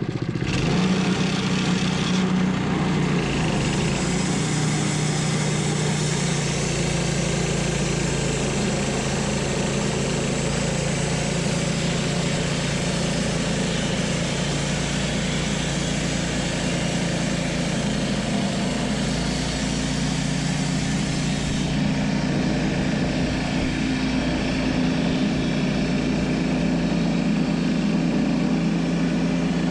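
Engine of a Wood-Mizer LT10 portable bandsaw mill running steadily at a constant speed, with a steady hiss over it.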